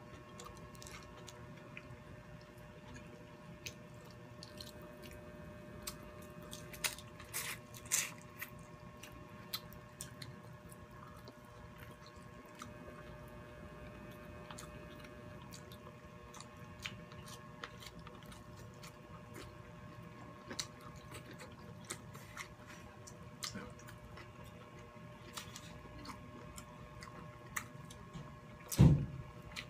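Close-up eating sounds: chewing and mouth smacking, with scattered small wet clicks and squishes as shell-on prawns and rice are handled and eaten by hand. One loud thump near the end, over a faint steady hum.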